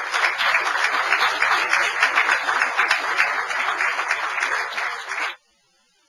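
Audience applauding, a dense, steady clapping that cuts off abruptly about five seconds in.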